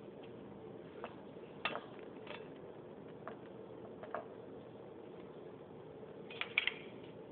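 Scattered light clicks and clinks of lab glassware and metal equipment being handled, over a steady low hiss, with a quick cluster of clinks near the end.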